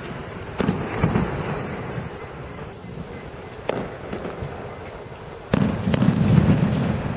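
Fireworks display: aerial shells bursting with sharp bangs, single ones about half a second in, a second in and near four seconds, then a louder run of bangs and rumbling from about five and a half seconds.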